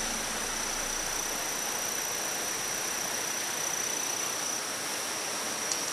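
A steady high-pitched insect trill over an even hiss, breaking into short pulses near the end.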